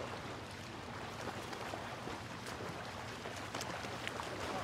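Small waves lapping and splashing among rocks at a lake's edge: a steady quiet wash of water with scattered small splashes.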